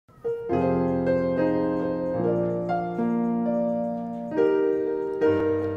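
Grand piano playing a sequence of sustained chords, a new chord struck about every second and each left ringing.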